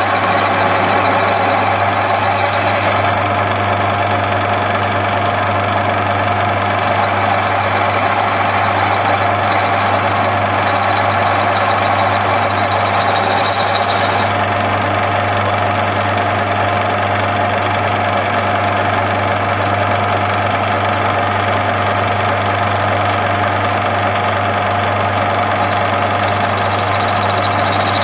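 Lathe motor running steadily while a ball is turned with a radius-turning cutter attachment: a constant hum with a steady tone. A higher hiss comes and goes during the first half.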